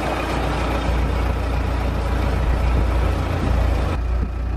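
Vintage car driving, heard from inside its open-sided cabin: steady low engine sound mixed with road noise.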